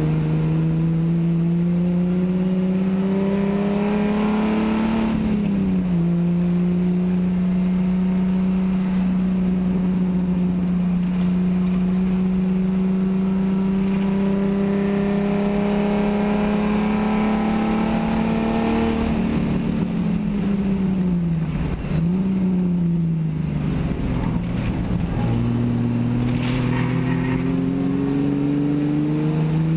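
Race car engine heard from inside the cockpit, pulling hard. The revs climb, then drop sharply about five seconds in at a gear change, and hold high, rising slowly, for a long stretch. Around twenty seconds in the revs fall as the car slows, with a quick dip and blip. The engine then pulls again from low revs, climbing near the end.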